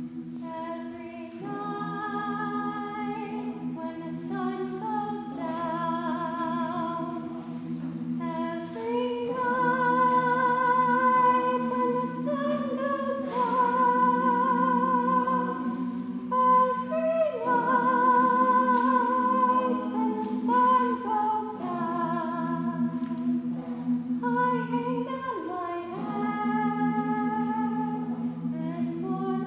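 Women's choir singing a cappella: slow, held chords over steady low notes, with a higher line sung with vibrato, the chord changing every few seconds.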